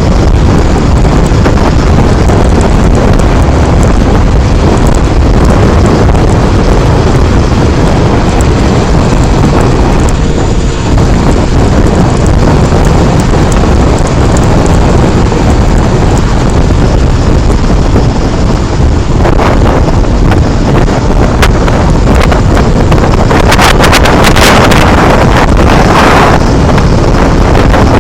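Heavy wind buffeting the microphone of a helmet-mounted action camera on a moving motorcycle, a dense low rumble that smothers the engine of the Mondial HPS 125i. The wind grows harsher and hissier for a few seconds near the end.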